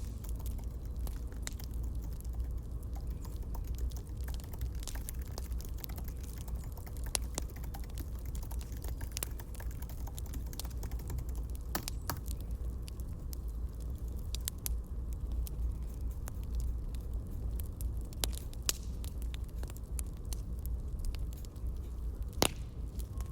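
Campfire crackling: a low steady rumble of the fire with scattered sharp pops and snaps, one louder pop near the end.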